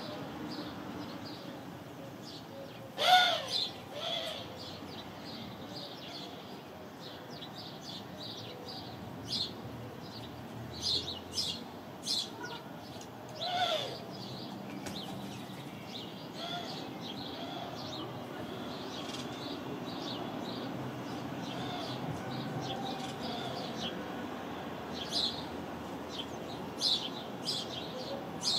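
House sparrows chirping: a steady run of short, high chirps, with a louder call about three seconds in and another near the middle.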